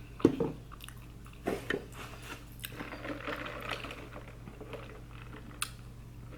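Biting and chewing food close to the microphone, with scattered sharp crunchy smacks, the loudest about a quarter second in, and softer chewing between them.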